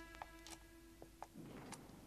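Near silence: the last held note of soft background string music fading out, with a few faint clicks.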